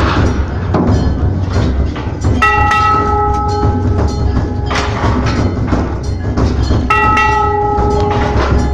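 A temple bell rung twice, about four and a half seconds apart, each strike ringing on with several clear tones for a second or two, over a continuous fast clatter of percussion from the aarti.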